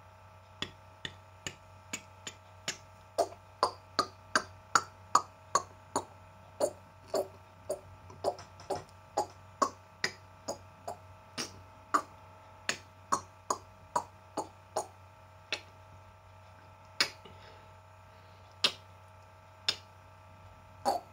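A woman making rapid mouth clicks and kissing pops with her lips, in imitation of dolphin clicks: sharp pops two or three a second, some with a brief pitch, thinning out after a pause of a second or so past the middle.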